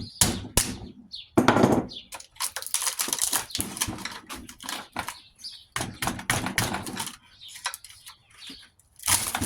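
Copper windings being worked out of a sealed-unit scroll compressor's motor with hand tools. A couple of sharp knocks at the start, then stretches of scraping, rattling metal and clicks.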